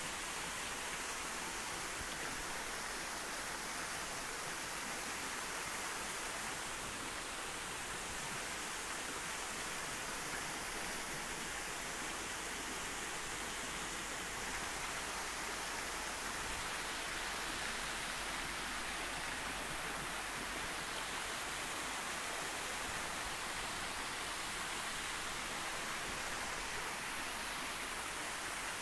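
Steady, even hiss with no voice and no distinct events.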